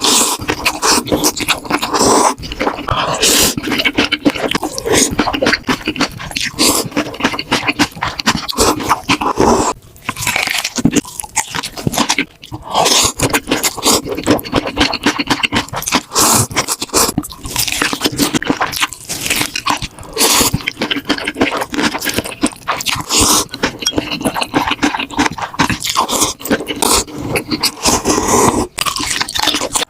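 Close-miked chewing of crunchy food: a dense, continuous run of crunches and crackles, with brief pauses about ten and twelve seconds in.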